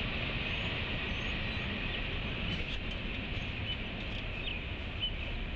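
Steady outdoor rumble and hiss, with a few short bird chirps in the second half.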